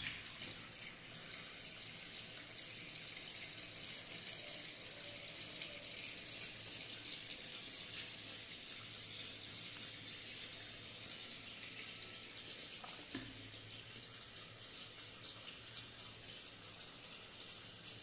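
Water running steadily from the inlet hose into a semi-automatic washing machine's wash tub full of clothes: the fill stage of the wash cycle. A low hum comes in about halfway through.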